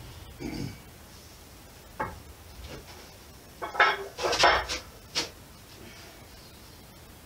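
Heavy metal weight plates clanking and scraping together as they are handled. A dull knock comes under a second in and a click at about two seconds; a cluster of loud clanks follows about four seconds in, and one more sharp clank comes a second later.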